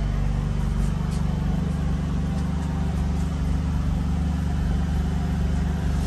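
Window-unit air conditioner running: a steady low hum with air noise, unchanging throughout.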